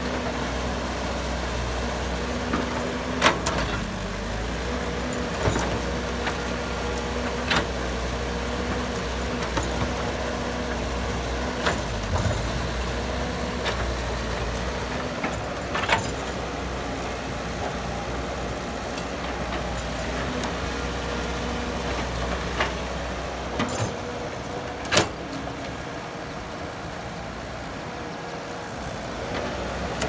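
Caterpillar tracked excavator's diesel engine running steadily while digging, with a steady whine over the low rumble. A few sharp knocks are heard every few seconds as the machine works. The low rumble eases for a few seconds near the end.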